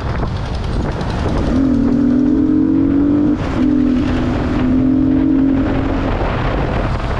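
Yamaha R15's single-cylinder engine pulling under acceleration, its note climbing, cutting out briefly about three seconds in as it changes up a gear, then carrying on at a lower pitch. Steady wind rush across the microphone underneath.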